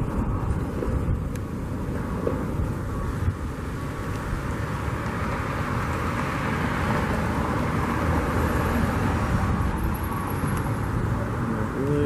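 Steady outdoor rumble of road traffic, swelling somewhat and easing off again between about six and ten seconds in.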